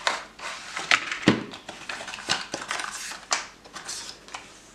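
A knife box being handled and unpacked, with cardboard and paper rustling and crinkling and a string of light clicks and taps. There is one heavier knock a little over a second in.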